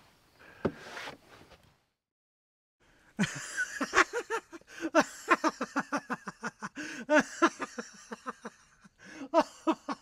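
Laughter in a quick run of high, short giggling syllables starting about three seconds in, after a brief pause.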